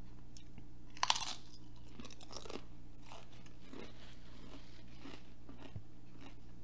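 A tortilla chip bitten with one loud crunch about a second in, then chewed with softer crunches close to the microphone.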